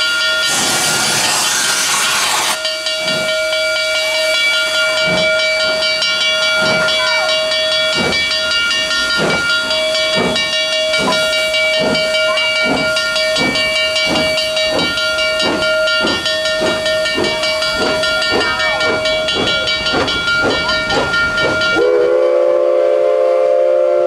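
Narrow-gauge steam locomotive (Durango & Silverton No. 486, a 2-8-2) getting under way: a loud blast of hissing steam at first, then exhaust chuffs about once a second that quicken toward the end, over a steady high whine. Near the end the steam whistle sounds a low chord for about two seconds.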